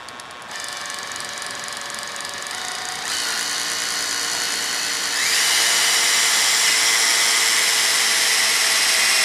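Cordless drill running a pilot bit through a boat's fiberglass transom. Its motor whine steps up in speed and loudness about half a second, three seconds and five seconds in as the bit bites.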